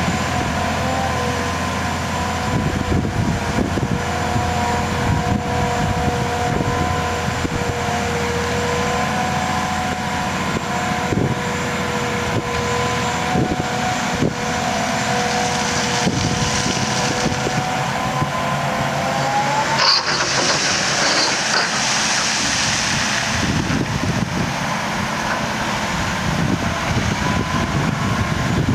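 Sennebogen 6140E HD dragline crane's Cat C27 diesel engine running steadily under working load, with a steady whine from the drive that glides up and breaks off about two-thirds of the way through. A hissing rush follows for a few seconds.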